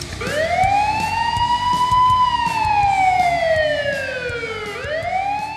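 Siren wailing: its pitch rises over about two seconds, falls slowly, then starts to rise again near the end.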